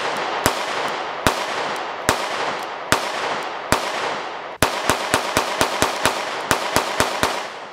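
Sig P365 XMacro 9mm ported-slide pistol firing: five slow, evenly spaced shots, then a quick string of about a dozen shots at roughly four a second. Each shot echoes briefly.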